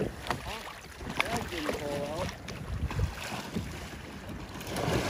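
Lake water splashing and sloshing around a fishing kayak as a swimmer in a drysuit heaves it over onto its side, with wind on the microphone and a brief voice partway through.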